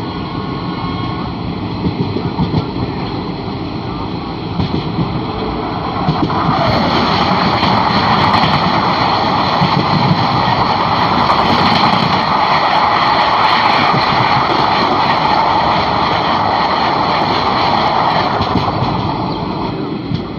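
Steady rushing of a moving passenger train's wheels and wind at an open coach door. About six seconds in, an opposing express train hauled by a WAP7 electric locomotive passes on the adjacent track, and a louder rush of wheels and coaches lasts about thirteen seconds before easing off near the end.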